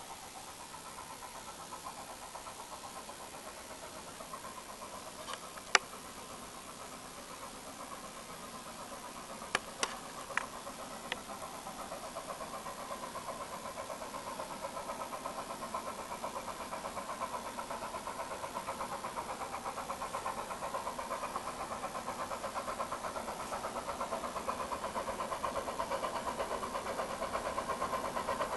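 HSB metre-gauge steam locomotive working hard uphill at full throttle, its fast exhaust beats growing steadily louder as it approaches. A few sharp clicks between about five and eleven seconds in.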